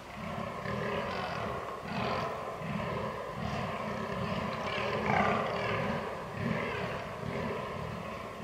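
Rutting fallow deer buck groaning: a steady run of deep, belching grunts, about two a second, with a louder call about five seconds in. This is the buck's rutting call.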